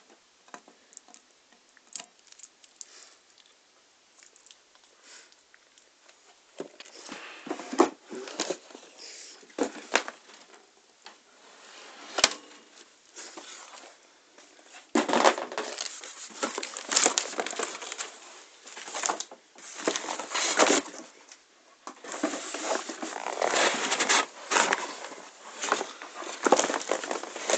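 Cardboard and plastic packaging being handled and rummaged through: irregular rustling and crinkling with scattered light knocks, growing louder and busier about halfway through.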